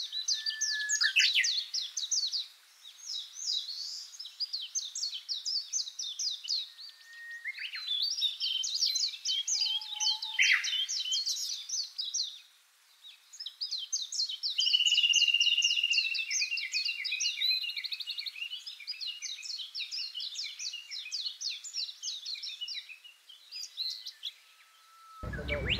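A songbird singing long, varied runs of rapid, high twittering notes and trills, broken by a few short pauses, with one clear held note about fifteen seconds in.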